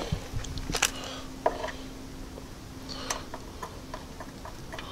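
Light, irregular clicks and taps from a metal tin of white lithium grease being handled, over a faint steady hum.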